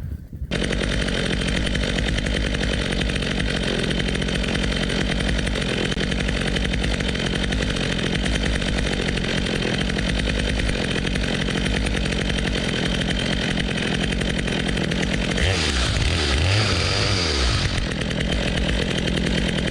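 Stihl chainsaw running at high revs, cutting a felling notch into a dead hickory trunk. Its note shifts briefly about three quarters of the way through.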